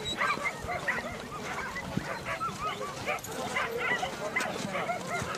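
Many hunting dogs barking at once, short barks overlapping in a continuous chorus.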